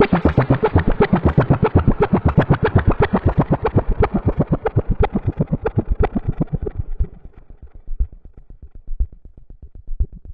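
Moog Subsequent 25 analog synthesizer playing a fast sequenced pattern of short notes, about eight a second. The notes grow duller about halfway through and drop to a quiet, muffled low pulse near the end.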